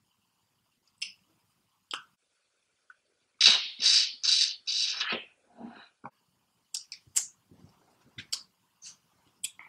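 Close-up eating sounds from a seafood boil: scattered lip smacks and shell clicks, with a run of about four loud sucking slurps a few seconds in as sauce is sucked off a piece of shellfish.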